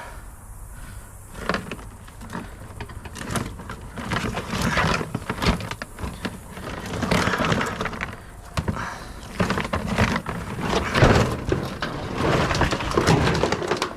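Scrap wire, cords and metal pieces being handled and pulled apart: irregular clattering, rustling and scraping, with many sharp knocks and louder stretches of clatter through the middle and near the end.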